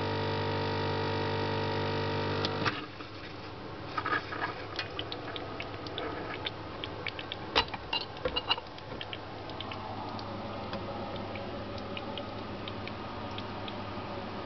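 Lelit PL042E Combi espresso machine's vibration pump buzzing steadily as the shot pulls, then shutting off with a click about two and a half seconds in. After that, light clinks and taps as the glass espresso cup is handled and lifted off the metal drip tray grate.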